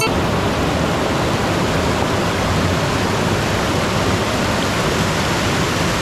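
Waterfall rushing steadily, an even unbroken noise of falling water.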